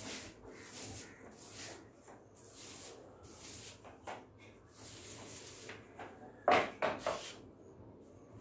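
Paint roller being worked back and forth over a wall, a soft swishing with each stroke. Near the end comes a short run of three louder clacks as tools are handled.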